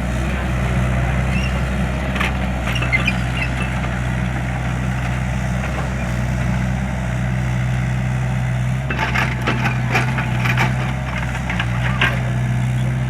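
A large engine running steadily at idle, with scattered knocks and clatter, busiest near the end.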